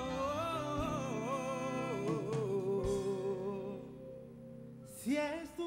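Live band playing a slow ballad. The singer holds a long, wavering note that slides down and fades about three and a half seconds in, over soft accompaniment. A sharp hit comes near the end as the next sung line starts.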